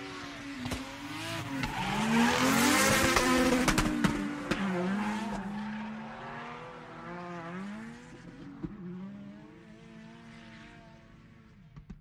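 Car engine revving up and down with tyres squealing, as in a drift; the squeal is loudest a few seconds in, then the engine sound fades out gradually.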